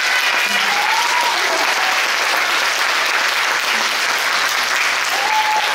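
Audience clapping steadily, a hall full of applause.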